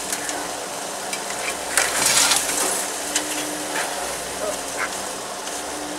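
Crackling and snapping of twigs, leaves and pine needles under the tyres of a Toyota FJ40 Land Cruiser creeping over a forest floor, with scattered sharp clicks and a louder rush of brushing noise about two seconds in.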